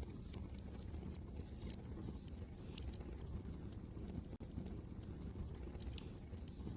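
Wood fire crackling in a fireplace, irregular sharp pops and snaps over a steady low rumble of wind, with a momentary drop-out about four seconds in.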